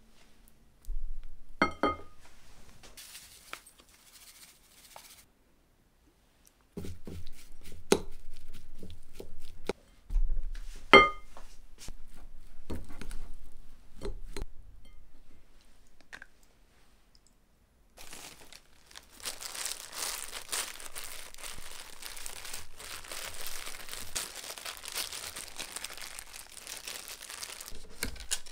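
A plastic rice paddle stirring rice in a glass bowl, with a few sharp knocks against the glass. From about two-thirds of the way in comes a steady crinkling of thin disposable plastic gloves.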